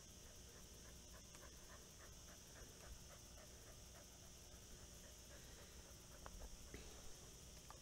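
Faint panting of a podenco dog: quick, even breaths, about four a second, over a steady high hiss.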